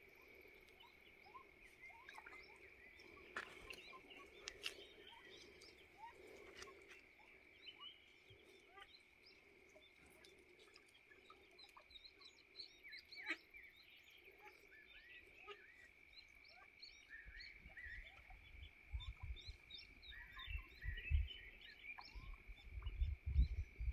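Eastern spot-billed ducklings peeping in many short, high calls over a steady high-pitched drone. Wind buffets the microphone in the last several seconds.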